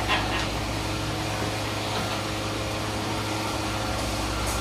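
Steady hum of running machinery in a peanut oil pressing workshop, with a few light clinks just after the start and near the end.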